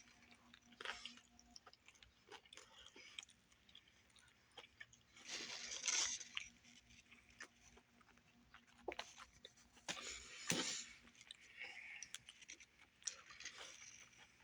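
A person chewing and biting into a Subway sandwich close to the microphone: soft wet mouth clicks and crunches, with two louder noisy bursts about six and ten seconds in.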